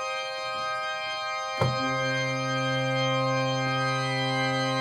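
Leeds Town Hall Organ sample instrument in Kontakt holding a sustained organ chord; about one and a half seconds in, deep bass notes come in underneath and the full chord holds on. A legit dramatic organ sound.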